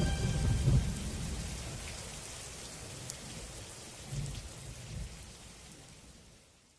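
Steady rain with a few low rumbles of thunder, fading out gradually over about six seconds.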